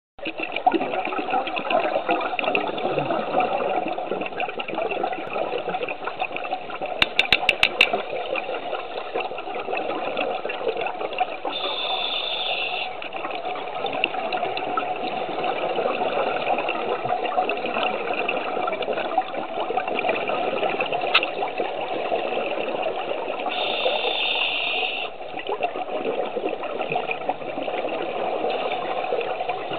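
Scuba diver breathing through a regulator, heard underwater through a camera housing: a steady bubbling rush of exhaust bubbles, with a short higher hiss twice, about twelve seconds apart. A quick run of sharp clicks about seven seconds in.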